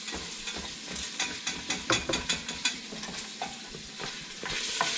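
A utensil stirring and scraping in a pan, with short clicks against the pan, over a steady sizzle of butter and flour cooking into a roux. The sizzle grows louder near the end.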